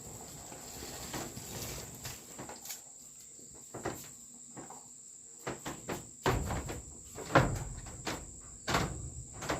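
A steady high insect trill, like crickets, under a run of irregular knocks and clunks, the loudest about seven seconds in.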